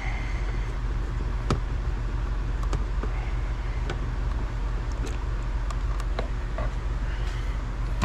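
Light, scattered clicks of a Phillips screwdriver working the screws of a plastic instrument-cluster bezel, over a steady low hum.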